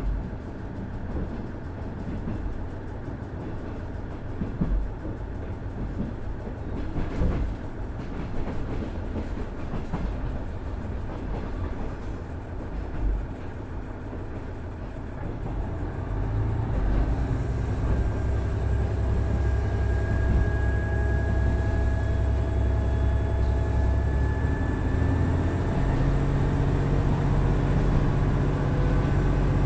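KiHa 110 series diesel railcar heard from inside, with its Cummins DMF14HZA engine: wheels and rail joints clattering at first, then about halfway the engine comes up under power and its note rises steadily as the train accelerates. Near the end the engine note changes and grows louder.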